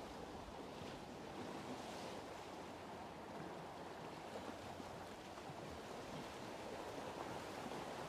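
Faint, steady wash of sea surf against a rocky shore.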